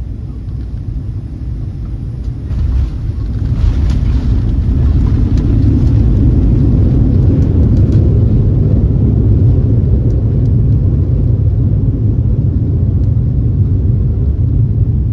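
Airliner landing, heard from inside the cabin: a heavy rumble of wheels on the runway and engine noise. It builds from about two seconds in to a peak lasting several seconds, then eases slightly as the plane slows.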